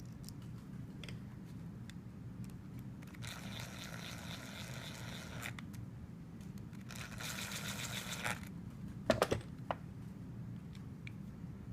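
Makita drill driving the screws into a trimmer carburetor, running in two short whining bursts of about two seconds each, then a few sharp clicks about nine seconds in.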